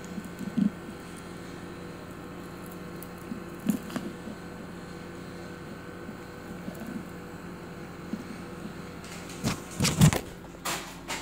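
Steady mechanical hum, with a few soft knocks and, near the end, a loud burst of rubbing and knocks from the phone lying face down being handled.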